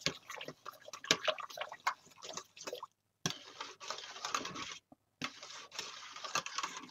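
Wire whisk beating a thick, simmering cheese soup base in a stainless steel pot: wet sloshing and slapping with irregular small clicks of the wires against the pot. The sound cuts out briefly twice.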